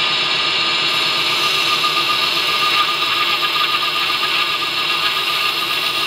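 A 2x72 belt grinder runs a medium-coarse surface conditioning (Scotch-Brite) belt with a steel knife blade pressed against it: a steady grinding rush with a faint whine, and a brighter hiss joins about a second in as the blade meets the belt.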